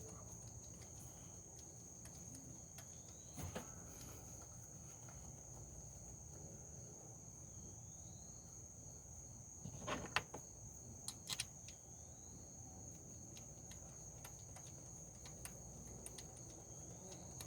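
Steady high-pitched chirring of crickets or other insects, with a few light sharp clicks about three and a half seconds in and a small cluster around ten to eleven seconds in, as the ignition coil bolts are put back in by hand.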